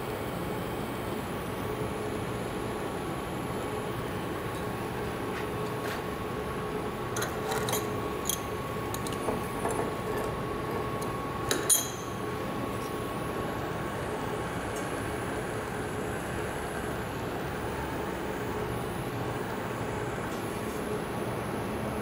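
Gas welding torch flame hissing steadily while brazing a copper tube to a steel pipe. A few light metallic clinks come between about seven and twelve seconds in, the sharpest just before twelve seconds, as the workpiece and rods are handled on the firebricks.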